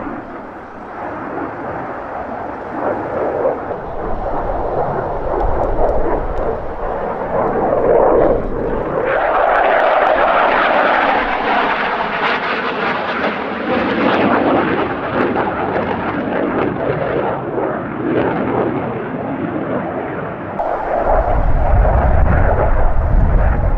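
JF-17 Thunder fighter's single RD-93 turbofan in a display flight: steady jet noise that swells about nine seconds in and eases again. A deeper, louder rumble comes in near the end.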